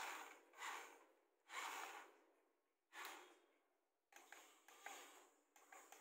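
Wired-remote toy excavator's small electric motors and plastic gears whirring in short bursts as it is driven forward in spurts, the bursts coming quicker and choppier after about four seconds.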